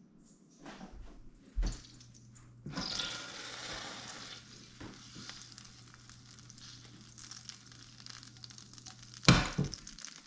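Butter sizzling as it melts and foams in a stainless steel frying pan, the hiss starting abruptly about three seconds in and slowly easing. A sharp knock comes about a second and a half in, and a loud knock comes near the end.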